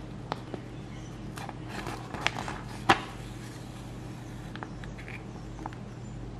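Paper practice sheet rustling and crinkling in the hands as a sewing needle and thread are drawn through its punched holes, with scattered light clicks and one sharper tick about three seconds in. A steady low hum sits underneath.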